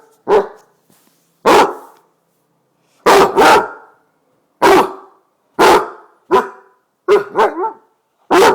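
Basset hound barking loudly at its owner to wake him. It gives about ten barks, roughly one a second, some in quick pairs.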